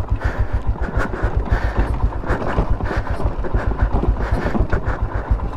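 A motorcycle engine running at low revs with a steady low chug as the bike rolls along a dirt trail, with wind buffeting the microphone.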